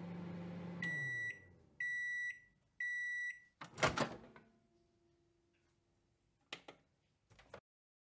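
Microwave oven finishing its cycle: the running hum winds down about a second in, then three beeps sound about a second apart to signal the time is up, and the door clunks open. Two short clicks come near the end.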